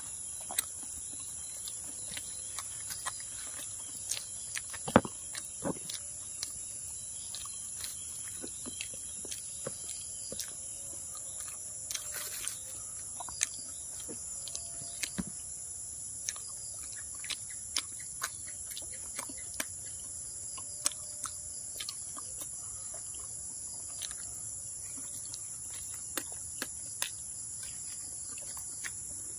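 Steady, high-pitched insect chorus throughout, with scattered short clicks and crackles from bread and a plastic bag being handled and food being eaten close to the microphone.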